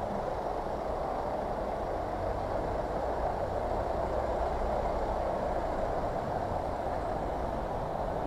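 Steady road traffic noise, with the low hum of engines of cars and a van running close alongside in slow, queued traffic.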